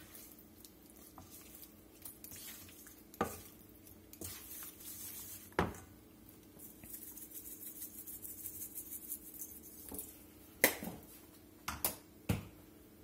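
Hands tossing raw seasoned chicken tenders in a stainless steel mixing bowl: soft squishing and handling, with a few sharp clicks and knocks, two of them close together near the end.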